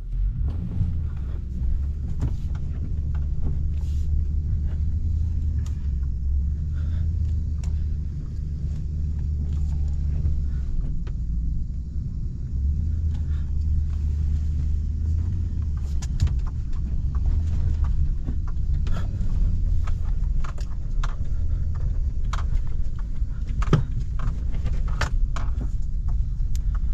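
Toyota Tundra pickup driving: a steady low rumble of engine and tyres that eases off briefly about halfway through, with scattered light clicks and rattles.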